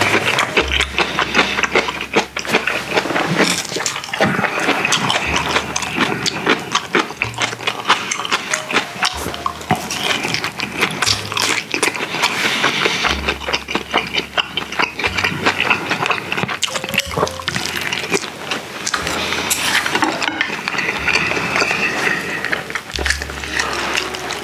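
Close-miked chewing and wet mouth sounds of a person eating grilled mackerel and rice: a steady run of smacks and clicks.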